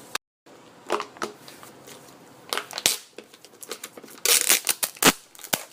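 Snack packaging being handled, crinkling and crackling in scattered short bursts, the busiest stretch about four to five seconds in.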